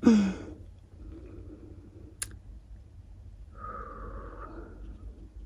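A person's short sigh, falling in pitch, then low handling noise with a single sharp click about two seconds in and a brief higher tone lasting about a second near four seconds in.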